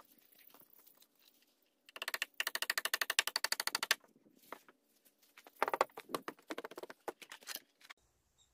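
Hammer driving large nails into wooden stair treads, sped up five times so the blows run together into a fast string of more than ten strikes a second: one run of about two seconds starting about two seconds in, and a second run near the end.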